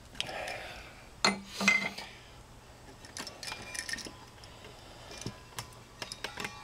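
Light metallic clicks and clinks of a NEMA 6-20 outlet being handled, its metal mounting strap and terminal screws knocking together in the hands. The loudest knocks come a little over a second in, with scattered smaller clicks after.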